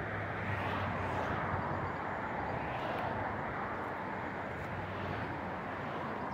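Steady rush of road traffic from a busy dual carriageway close by, with a low steady hum underneath.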